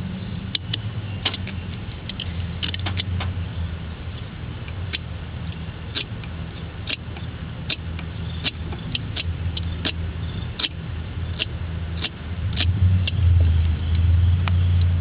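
Scattered sharp clicks and scratches from a box cutter slitting the tape on a pair of wires and the wires being pulled apart, over a steady low rumble that gets louder near the end.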